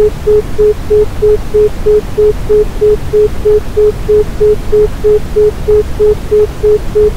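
Synthesized isochronic tone: one mid-pitched steady tone pulsing on and off about three times a second (a 3.14 Hz beat), over continuous Brownian noise, a low rumbling hiss.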